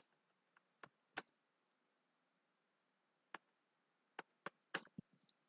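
Faint, slow typing on a computer keyboard: a handful of separate key clicks spaced unevenly, with a two-second gap about a second in and a quicker run of keystrokes near the end.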